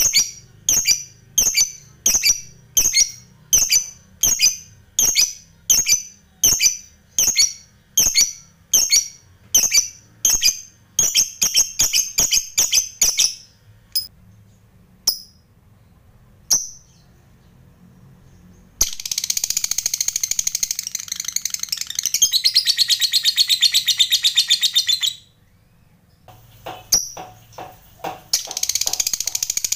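Lovebird calling with a sharp, high call repeated about twice a second, then, after a few scattered calls, a long rapid chattering trill (the 'ngekek panjang') lasting about six seconds, with another starting near the end.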